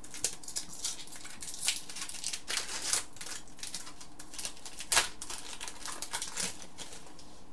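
Hockey trading cards handled and flipped through by hand: a run of paper rustles, crinkles and light snaps, with a sharper snap about five seconds in.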